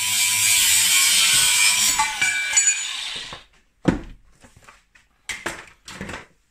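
Cordless angle grinder cutting through a steel fuel rail, then spinning down about two seconds in and fading out by three and a half seconds. A sharp knock follows as the grinder is set down on the wooden bench, then a few lighter knocks and clatters.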